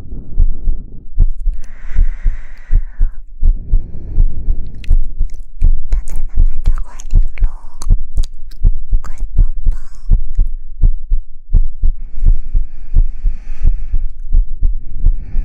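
Soft, rhythmic low thumps, about three a second, from gentle patting on a binaural ASMR microphone. Short breathy hushing or rubbing sounds come in now and then.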